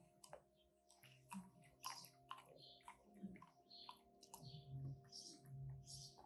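A cocker spaniel crunching and chewing ice cubes: irregular sharp clicks and crunches, several a second, with short pauses.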